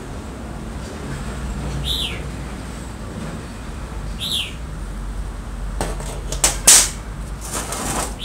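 A bird repeats a short whistled note that falls in pitch, about every two and a half seconds. About six seconds in come a few sharp clicks and a louder clatter: old steel pliers being handled and set down on the workbench.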